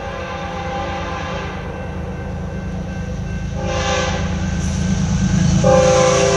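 Horn of an approaching BNSF freight train led by a GE ES44C4 diesel locomotive, blowing long chord blasts for a grade crossing. Under the horn is the low rumble of the diesels, getting louder as they near. A louder blast starts about five and a half seconds in.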